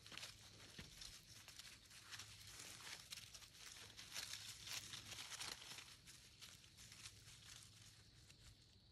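Faint, irregular rustling and crackling of grass and dry fallen leaves as puppies nose and paw through them.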